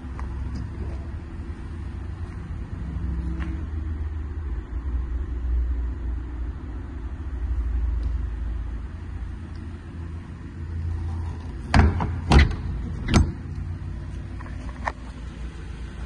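Rear swing doors of a van's box body being shut and latched: three loud bangs in quick succession about twelve seconds in, over a low rumble, with a few light latch clicks.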